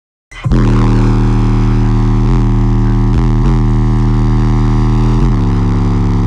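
Bass-heavy music played very loud through four 21-inch subwoofers in a ported box, a long held low bass note that slides briefly in pitch a few times. It starts suddenly about a third of a second in.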